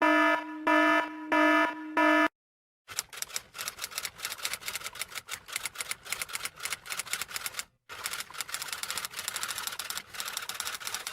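Four short pitched beeps, then typewriter keys clacking in a fast, irregular run for about eight seconds, broken by one brief pause two-thirds of the way through.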